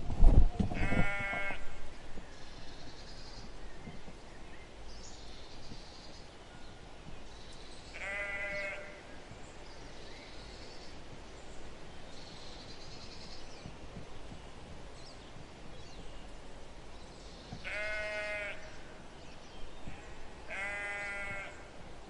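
Sheep bleating four times, each call about a second long and well spaced apart, over a quiet background. A loud low rumble fills the first second or so.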